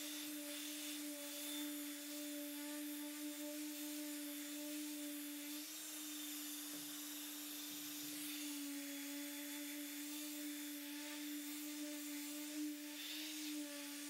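Random orbital sander (Festool ETS 150) running with a steady hum while sanding the pine walls of a nesting box, its pitch wavering slightly.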